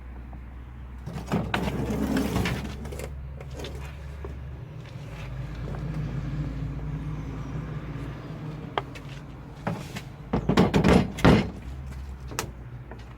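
SsangYong Korando Sports engine running steadily, with a few knocks and rattling clatters twice, about a second in and near the end, and some sharp clicks.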